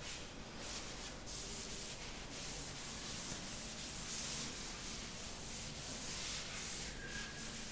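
A cloth wiping a chalkboard, rubbing off chalk writing in repeated uneven strokes.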